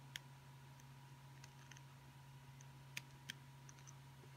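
Near silence with a few faint clicks, about three plainly heard, as an LED's wire leads and a slim metal tool work against a small 3D-printed plastic tile. A low steady hum runs underneath.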